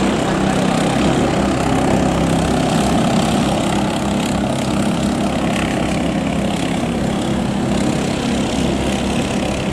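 Small 7 HP petrol engines of vỏ lãi longtail racing boats running hard at speed, a loud steady engine drone with no let-up.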